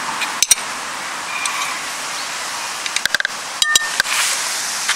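A metal spoon tapping and clinking against a glass mixing bowl: a couple of taps about half a second in, then a quick run of clinks around three seconds in, one ringing briefly. A steady hiss runs underneath.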